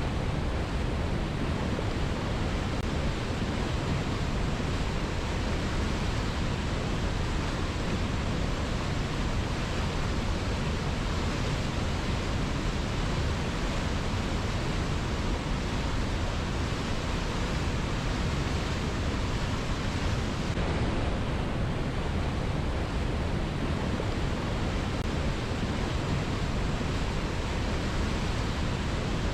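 A strongly flowing river: a steady, unbroken rush of water.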